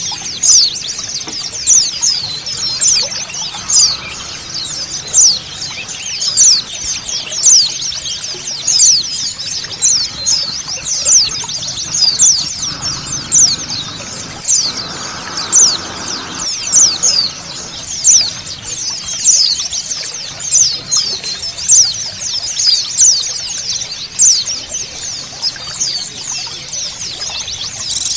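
A flock of white-eyes (pleci) twittering together: a dense chorus of rapid, high-pitched chirps with louder peaks about once a second. It sits over a steady rush of flowing water.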